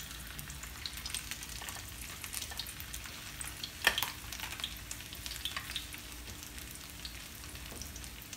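Flour-dredged red snapper fillet frying skin-down in hot oil in a pan: steady sizzling with scattered small spits and crackles, and one louder pop about four seconds in.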